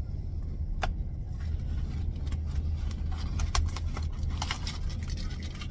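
A car engine idling inside the cabin, a steady low hum, with scattered light clicks and rustles on top.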